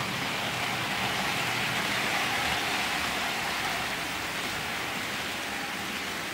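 Hornby OO gauge Class 373 Eurostar model train running along the track: a steady rushing of wheels and motor that swells as it passes and then eases off.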